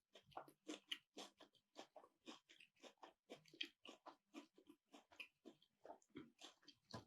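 Faint, close-miked chewing: soft wet and crunchy mouth sounds, several small clicks a second.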